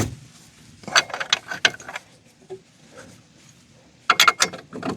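Hand ratchet clicking in two quick runs of clicks, about a second in and again near the end, as a bolt is run in.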